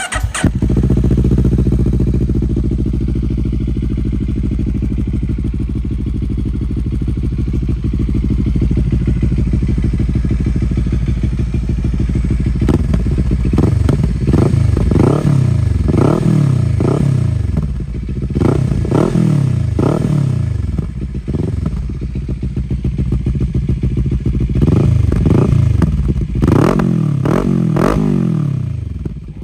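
Moto Morini X-Cape engine running through an FF By Fresco Dakar aftermarket exhaust: a steady idle for the first half, then a series of quick throttle blips, each rising and falling in pitch, until near the end.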